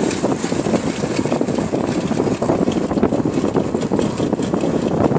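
Motorcycle ridden at speed on the highway: the engine runs steadily under a constant rush of wind and road noise on the microphone.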